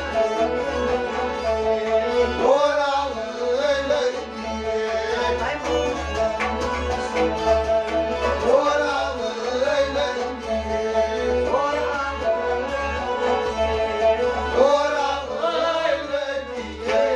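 Kashmiri folk music played live: a harmonium's held chords under a bending melody line, sung and doubled on string instruments, in phrases every few seconds, over a steady drum beat.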